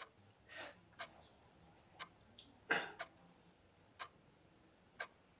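A clock ticking faintly and evenly, about once a second, in a hushed room. A soft breath comes about half a second in, and a louder breath near three seconds.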